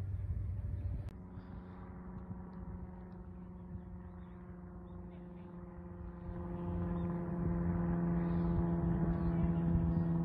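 A steady engine hum with a stack of overtones, getting louder from about six seconds in, with a sharp click about a second in.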